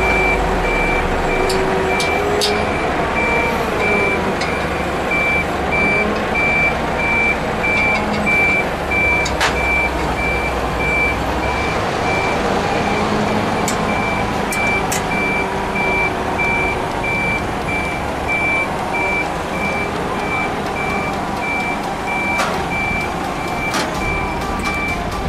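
Komatsu forklift's reversing alarm sounding evenly spaced high beeps over its running engine as it backs up; the beeping stops near the end.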